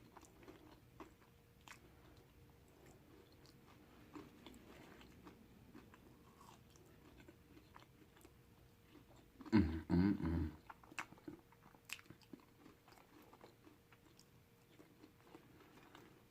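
A person chewing and biting food close to the microphone: faint wet clicks and crunches. About ten seconds in there is one louder mouth sound lasting about a second.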